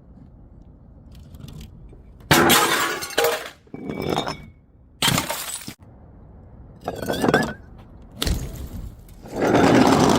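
Glass bottles smashing one after another: about five or six sudden crashes over several seconds, with clinking and brief ringing of glass fragments between them.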